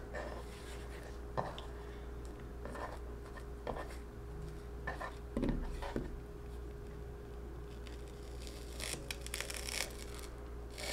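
A chef's knife cutting lengthwise through leeks on a wooden cutting board, heard as scattered short crisp cuts with the rubbing and tearing of leek layers being split apart, coming more often near the end. A faint steady hum sits underneath.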